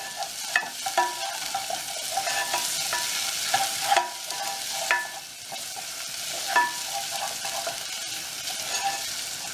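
Diced onions and spices sizzling in oil in a frying pan while being stirred. A utensil scrapes and knocks against the pan at irregular moments, some knocks ringing briefly.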